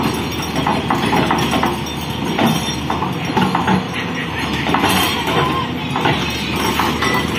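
Heavy machinery running steadily with frequent short knocks and clanks, typical of an excavator breaking a wall.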